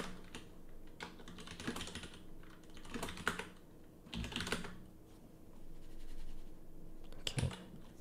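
Typing on a computer keyboard in a few short bursts of key clicks with pauses between.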